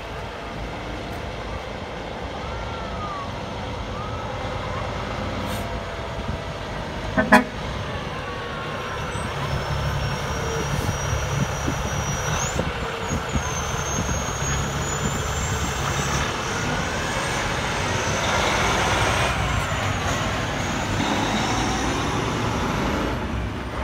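Kenworth T880 tow truck's diesel engine running as the truck pulls away, growing gradually louder, with a single short horn toot about seven seconds in.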